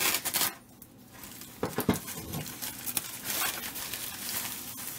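A sharp folding knife (Boker Plus Sniper Bladeworks S2) slicing through the top of a padded paper mailer in a quick rasp, then a few knocks as the knife is laid on the wooden bench, and the paper mailer crinkling as it is handled.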